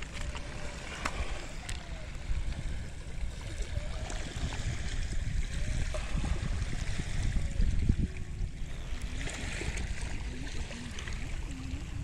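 Shallow seawater lapping and gurgling over a seaweed-covered reef flat, with wind rumbling on the microphone.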